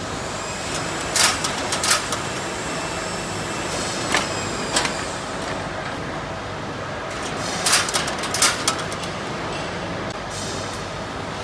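Automatic single-wire chain link fence machine running: a steady mechanical drone with three clusters of sharp metallic clanks, about one every three and a half seconds, as it works the wire mesh.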